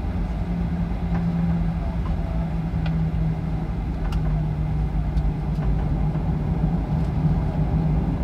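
Cabin noise of a jet airliner taxiing, heard from inside the cabin: a steady engine hum with a low rumble, and a few faint clicks.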